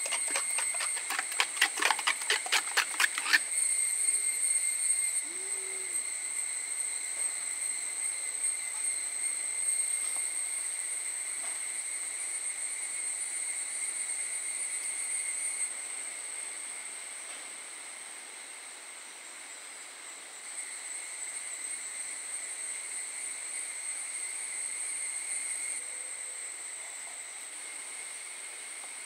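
A steel spoon beating egg in a black clay bowl: a quick run of clinks, about seven a second, for some three seconds near the start. Under it, a steady high insect chirring carries on throughout.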